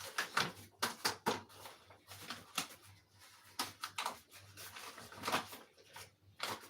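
Irregular clicks and knocks of a spoon against a mixing bowl as flour, sugar and yeast are stirred together by hand.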